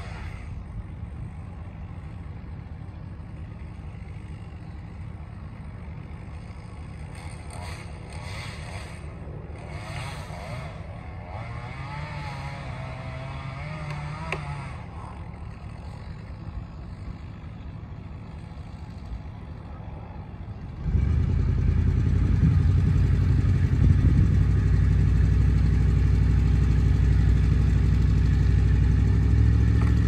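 A chainsaw running some way off, its pitch rising and falling a few times. About two-thirds through, a much louder vehicle engine starts running steadily close by.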